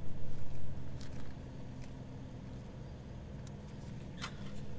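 Steady low hum inside a parked car's cabin, with a few faint short clicks from light handling while the two eat and drink.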